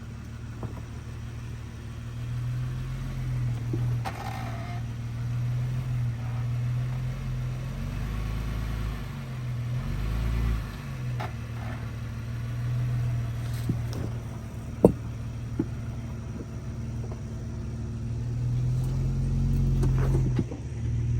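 2013 Jeep Wrangler JK's 3.6-litre Pentastar V6 running as the Jeep is driven slowly, with the engine note dipping and rising again about eight to eleven seconds in. A few short clicks sound over it, the sharpest about fifteen seconds in.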